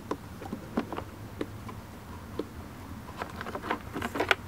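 Light plastic clicks and taps from the Volvo S80's air filter box lid as it is pressed and worked into place by hand. The knocks come irregularly, a few at a time, and crowd together near the end as the awkward-fitting lid is pushed to seat.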